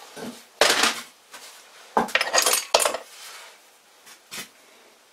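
Hard metal parts clinking and scraping as they are handled: a few separate bursts, the longest about two seconds in and a short one near the end.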